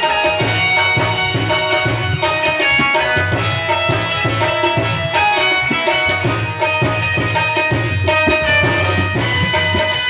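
Chhattisgarhi ramdhuni devotional band playing an instrumental passage: sustained melody lines over a steady drum rhythm.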